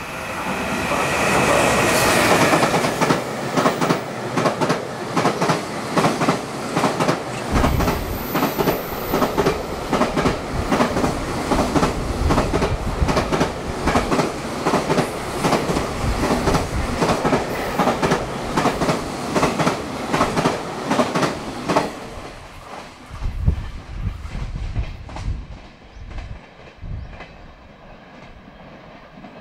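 EF210 electric locomotive and its freight train passing through a station at high speed. The locomotive rushes past in the first couple of seconds, then comes a long, fast clickety-clack of wagon wheels over the rail joints. The clicking stops abruptly about 22 seconds in as the last wagon clears, leaving a fading low rumble.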